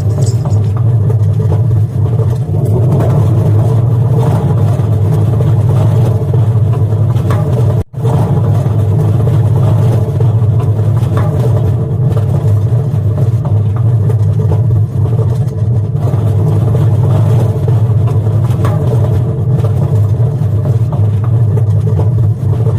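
Washing machine in its spin cycle, running with a loud, steady low rumble, the noisy spin that the owner describes as grinding. It cuts out for an instant about eight seconds in.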